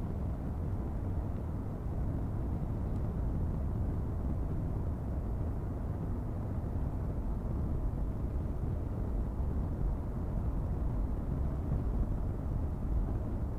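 Steady low road and engine noise of a moving car, an even rumble with no distinct events.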